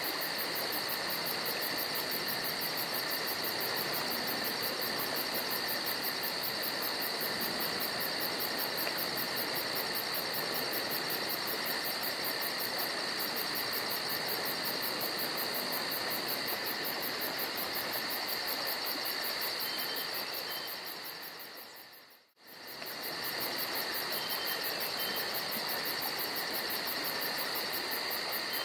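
Steady chorus of crickets or similar insects, high and continuous with a fast pulsing trill, over an even rushing creek. About three-quarters through, the whole sound dips briefly to silence and fades back in.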